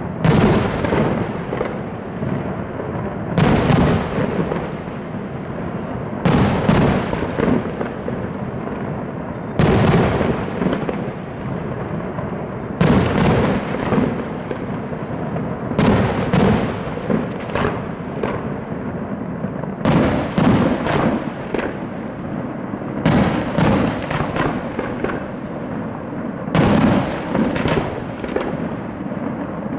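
Fireworks display: loud firework bursts about every three seconds, each fading out over a second or so, over a continuous crackle and rumble.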